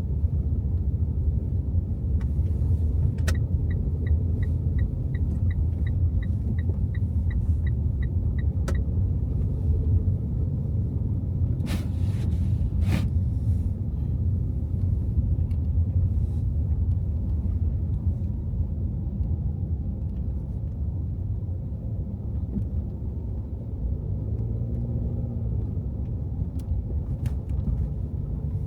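Car driving on snowy city streets: steady low rumble of engine and tyres, with a quick regular ticking for about five seconds a few seconds in and a couple of brief knocks about halfway through.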